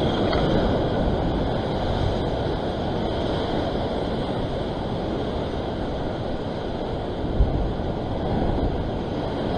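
Surf washing and churning against sea rocks, with wind rumbling on the microphone; a brief low thump about seven seconds in.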